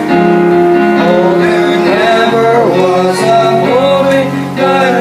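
A man singing a slow gospel hymn over instrumental accompaniment, holding long notes that waver in pitch.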